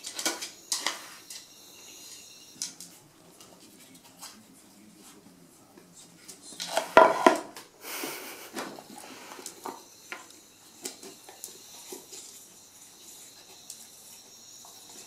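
Wooden dog puzzle toy clattering and knocking as a dog noses and paws at its discs and lids. There are scattered light clicks and knocks, with the loudest burst of clatter about seven seconds in.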